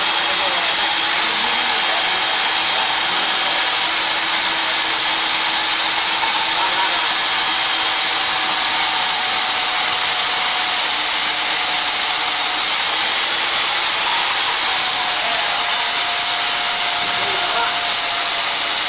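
Electric diamond core drill on a rig stand running under load as its core bit cuts into a concrete floor: a loud, steady whirring hiss over a motor hum whose pitch sags slightly a few times.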